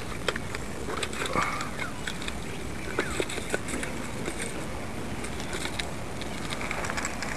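Handling noise: scattered clicks and rustles over a steady background hiss.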